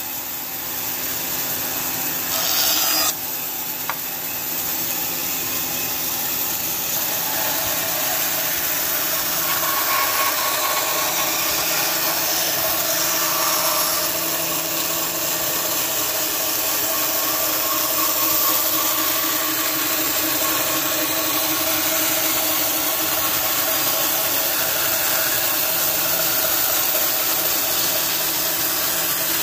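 Bandsaw running steadily, its blade cutting wood as a fluted wooden strip is fed into it. A brief louder stretch comes about two to three seconds in.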